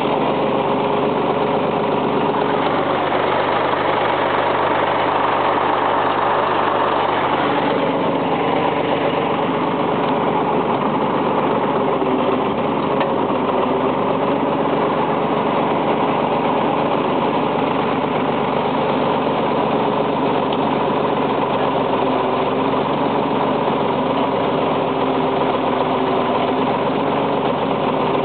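Backhoe engine running steadily, heard from the operator's seat.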